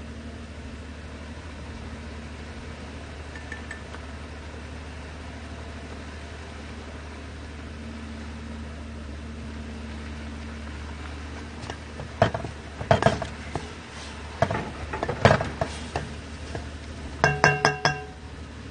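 Metal cookware and utensils clinking and knocking, a scattered series of sharp strikes starting about twelve seconds in, one of them ringing briefly near the end, over a steady low hum.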